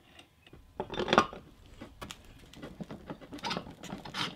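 Irregular knocks, clicks and rustling from handling the minibike's front wheel and parts during assembly, with the loudest clunk about a second in.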